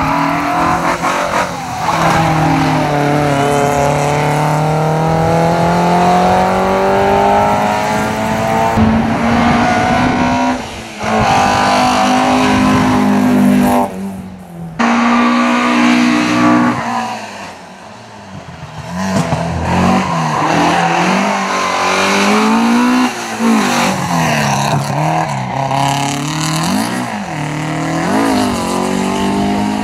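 Alfa Romeo 33 racing cars' flat-four boxer engines revving high as several cars pass one after another, the pitch climbing and dropping at each gear change, with quick throttle blips on downshifts later on. The sound dips or cuts off briefly a few times between passes.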